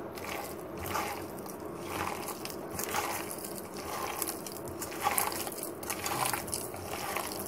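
A hand mixing chopped onions and besan (gram flour) into a stiff, damp dough in a steel bowl, making soft squishing sounds with a stroke about once a second.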